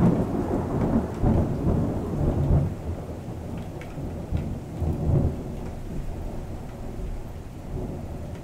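A thunderstorm: rolling thunder dies away gradually, swelling briefly again a few times in the first five seconds, over steady rain.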